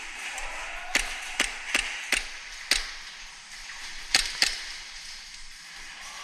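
Airsoft gunfire: seven sharp snapping cracks, five irregularly spaced between about one and three seconds in, then a quick pair a little after four seconds.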